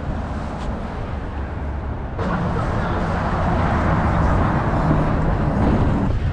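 City street traffic noise: a steady rumble of passing vehicles, with a louder wash of noise from about two seconds in that ends abruptly near the end.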